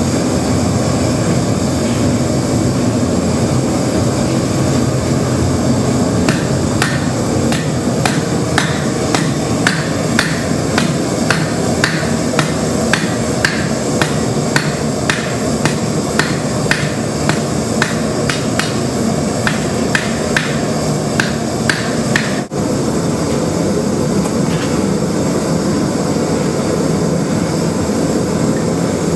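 Blacksmith's hammer striking steel on an anvil, about two blows a second, over the steady rushing of the landfill-gas forge burner. The hammering starts about six seconds in and stops about three-quarters of the way through, leaving the forge noise alone.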